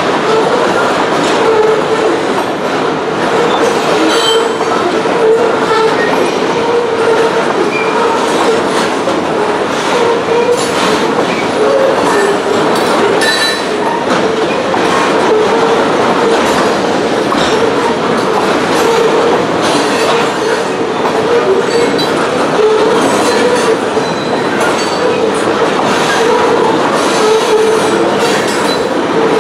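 Loaded grain train of covered hopper cars rolling past, steel wheels clacking over the rail joints in a steady run of clicks, with a steady ringing tone running through it.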